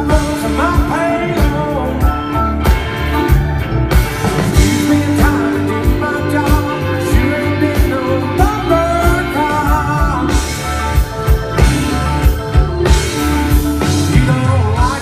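A live country band plays a song at a sound check: a steady drum beat, bass and electric guitar, with a lead vocal singing over it.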